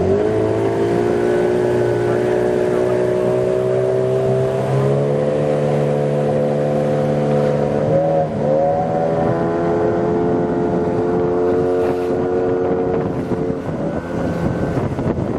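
A small fishing boat's motor running under steady load. Its pitch creeps up over the first few seconds and dips briefly about eight seconds in, as the boat rides through big waves.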